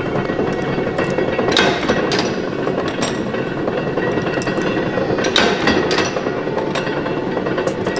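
Mechanical power press stamping stainless steel scissor blades, a sharp metallic clunk every second or two over the steady running noise of factory machinery.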